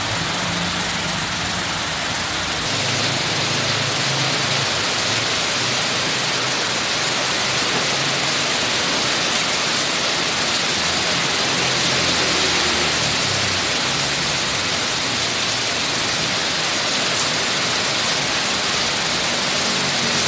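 Heavy rain pouring steadily, a dense even hiss, with the low engine hum of road traffic coming and going underneath.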